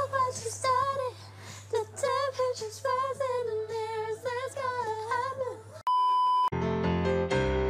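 A young woman singing a melody unaccompanied in short, wavering phrases. About six seconds in it is cut off by a loud, steady test-tone beep lasting just over half a second, and piano music follows.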